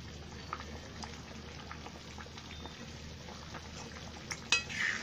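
Egg curry gravy bubbling at a simmer in a steel kadhai, with eggs poaching in it, making many small scattered pops. A few sharper clicks from the steel ladle against the pan come about four and a half seconds in.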